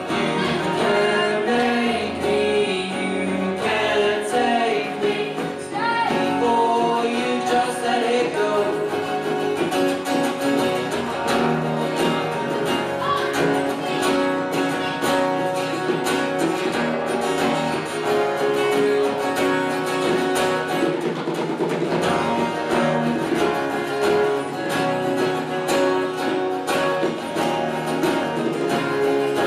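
Two acoustic guitars strummed in a live acoustic pop-rock song, with a young male voice singing over them, the singing most prominent in the first third.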